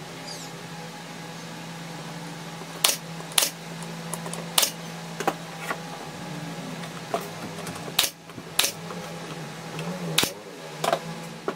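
Sharp knocks and clacks, about nine at uneven intervals, of plywood and PVC-faced boards being handled and set down on a wooden workbench, over a steady low hum.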